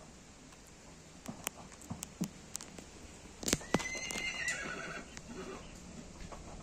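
A horse whinnies once, a high wavering call of about a second and a half starting a little past halfway. A few sharp clicks come before it.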